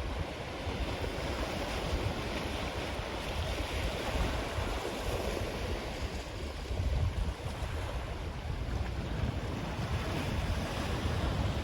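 Ocean surf washing onto a black sand beach, swelling and easing, with a sea breeze buffeting the microphone as a low rumble.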